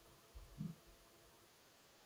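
Near silence with a brief, low, muffled sound about half a second in, picked up through a video-call microphone.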